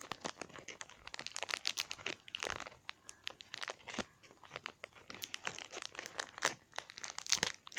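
Foil wrapper of a Yu-Gi-Oh booster pack crinkling and crackling in irregular sharp bursts as it is pulled and twisted, in an unsuccessful attempt to tear it open by hand.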